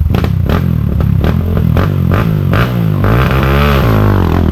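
Enduro dirt bike engine revving hard and unevenly while climbing a rocky section. Its pitch rises and falls, sagging and picking up again about three seconds in. Sharp knocks come in the first two seconds.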